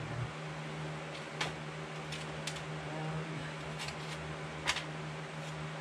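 Light clicks and clinks of chainsaw parts and hand tools being handled on a workbench, about six sharp ticks spread out, over a steady low hum.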